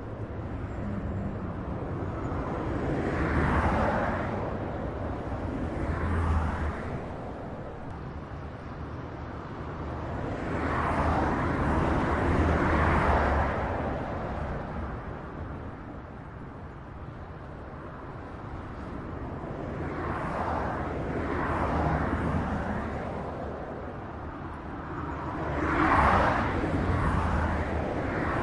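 Highway traffic: a steady low rumble with vehicles passing one after another, each swelling up and fading away over a few seconds, the loudest pass near the end.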